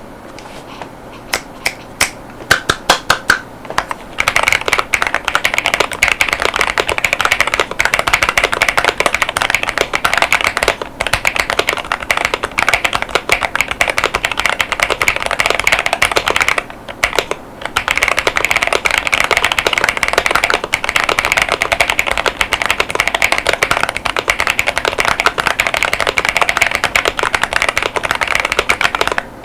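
Mechanical keyboard being typed on: a GravaStar Mercury K1 Lite with GamaKay Mars tactile 50 gf switches and PBT Cherry-profile keycaps. A few separate key presses come first, then fast continuous typing from about four seconds in, with a brief pause a little past halfway.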